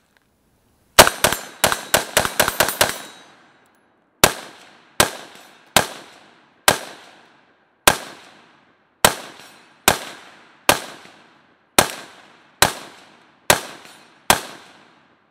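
A Galil ACE 5.56 rifle firing steel-cased ammunition. A rapid string of about nine shots in under two seconds comes first, then about thirteen slower shots, evenly paced a little under a second apart, each trailing off briefly. The last shot empties the magazine.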